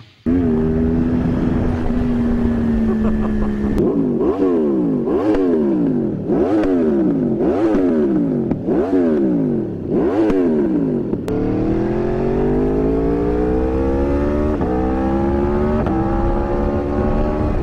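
Motorcycle engine holding a steady speed, then revved up and down about six times in a row. It then pulls away, climbing in pitch with two brief dips that sound like upshifts.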